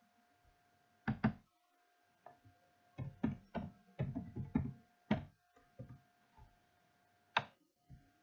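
Computer keyboard being typed on: an irregular string of short key clicks, several in a quick run in the middle, with a faint steady tone underneath.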